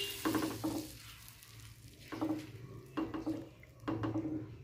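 Silicone spatula stirring semolina and milk in a non-stick pan: a run of short, wet stirring strokes, several a second at times, with gaps between. A faint sizzle from the hot semolina taking in the milk fades out in the first second.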